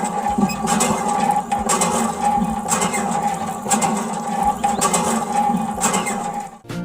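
A small motor running steadily, with a sharp click about once a second; it cuts off shortly before the end.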